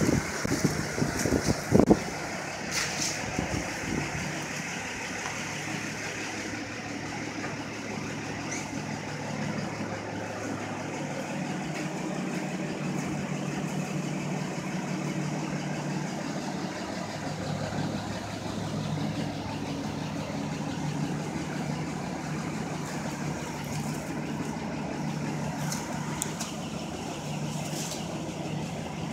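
An engine idling steadily, with a few knocks and bumps in the first couple of seconds.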